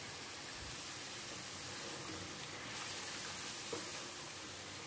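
Chicken and onion-tomato masala frying in oil in a wok, giving a faint, steady sizzle.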